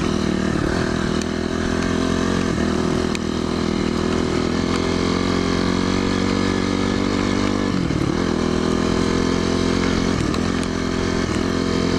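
Dirt bike engine running steadily under way on a trail ride. The engine note dips briefly twice in the second half, and there are a few faint clicks.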